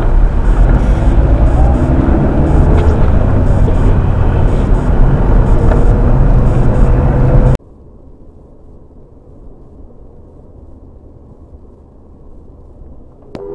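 A car on the road heard from inside: loud, steady road and wind noise with a heavy low rumble. It cuts off abruptly about seven and a half seconds in, leaving a much quieter, muffled low hum.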